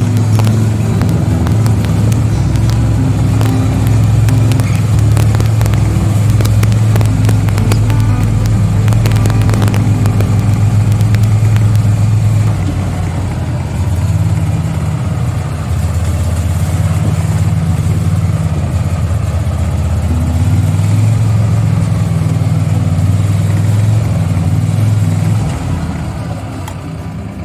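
Vehicle driving over a rough ranch track: the engine runs steadily under load, with knocks and rattles from the bumps. The engine note changes about 13 seconds in and again around 20 seconds.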